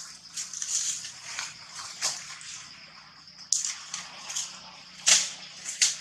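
Leaves and thin branches rustling and crackling in irregular bursts as a young macaque climbs a sapling, the sharpest crackles in the second half. A steady high-pitched background whine runs underneath.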